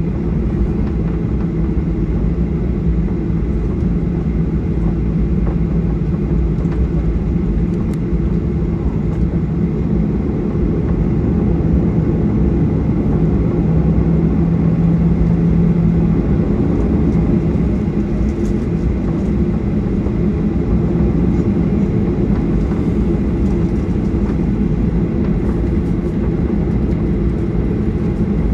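Boeing 737-800's CFM56-7B engines and airflow heard inside the passenger cabin as a steady low rumble, with a low hum that stops about halfway through.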